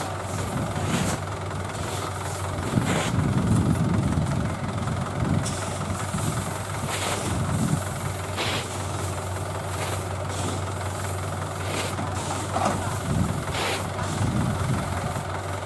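Mahindra 475 DI tractor's diesel engine running steadily, its low note swelling and easing several times as it pulls in soft mud, with a few short hissy puffs over it.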